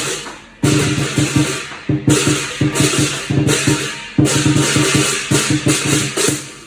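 Lion dance percussion: a Chinese drum beating a fast rhythm while cymbals clash on the strong beats, each clash ringing and fading over about a second.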